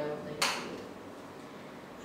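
A woman's speech trailing off with a short hissy breath or sibilant, then a pause filled only by quiet small-room tone.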